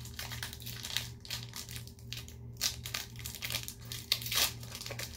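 A foil Pokémon booster pack being crinkled and torn open by hand, with irregular crackles and rips, loudest twice in the second half.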